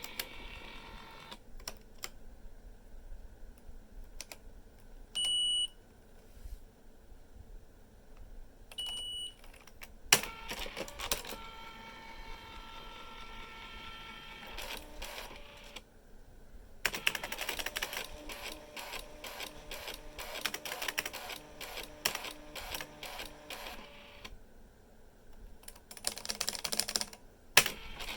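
Canon Typestar 3 electronic typewriter in use: scattered key clicks, two short high beeps, and two longer stretches of rapid mechanical clicking with a steady motor tone from its print mechanism running.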